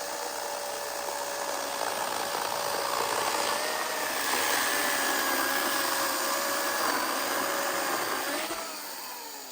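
Chainsaw running steadily at high speed with a constant whine, fading out near the end.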